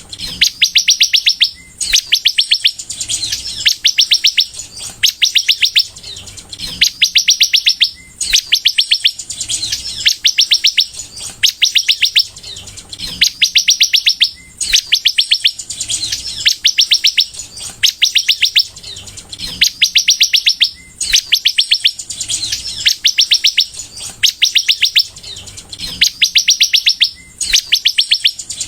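Sunbird singing at full effort: a rapid string of quick high notes, about a second and a half long, repeated over and over roughly every two seconds.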